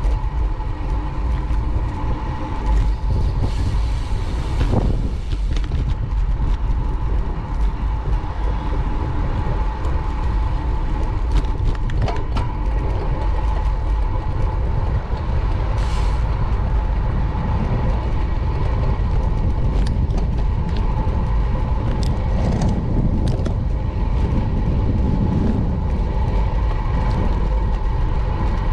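Street traffic heard from a moving bicycle, under a steady low rumble of wind on the microphone. A thin steady tone runs through it, and a few sharp clicks stand out.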